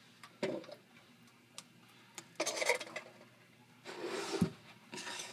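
Objects being handled on a wooden table: short rubbing and scraping noises in a few bursts, a light knock early, and a dull thump about four and a half seconds in.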